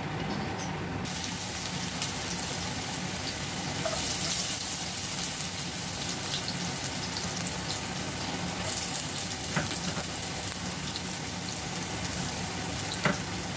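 Chopped garlic frying in hot olive oil in a nonstick pot, a steady sizzle that starts about a second in, with a few light clicks.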